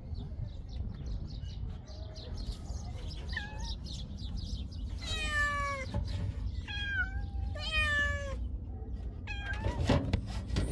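Several cats meowing over and over: small faint meows at first, then a run of loud, drawn-out meows in the second half.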